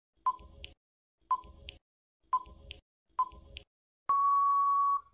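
Quiz countdown timer sound effect: four short ticks, one a second, each a pair of clicks, then a steady electronic beep about a second long signalling that the answer time is up.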